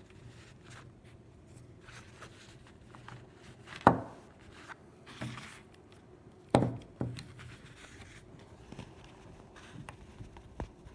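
Handling noise of an antique Remington revolver as its cylinder is worked out of the frame: faint rubbing and small clicks, with two sharp knocks, about four seconds in and again some two and a half seconds later.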